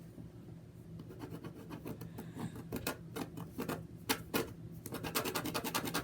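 Clicker ballpoint pen scribbling on paper, colouring in with short back-and-forth strokes that come faster and closer together near the end.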